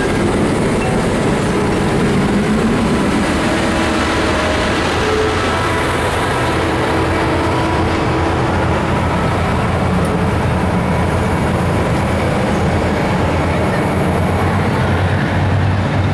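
Norfolk Southern passenger cars rolling past close by, their steel wheels running loud and steady on the rails.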